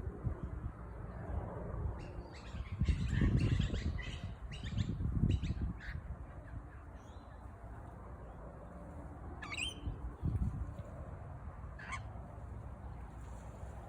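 A bird giving a run of short calls in quick succession, then single calls later on, over a low rumble.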